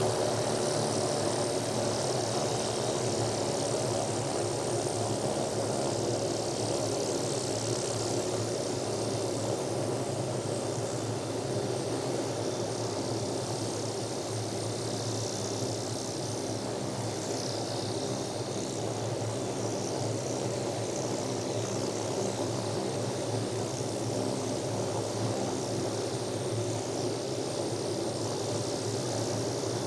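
Bell 505 Jet Ranger X helicopter running steadily: an even turbine whine over the rotor and engine drone, heard from outside the aircraft.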